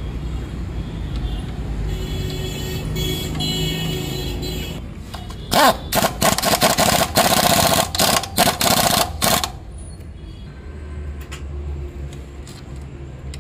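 Pneumatic impact wrench running in a string of short, loud bursts lasting about four seconds, tightening the bolts of a motorcycle's rear footrest bracket.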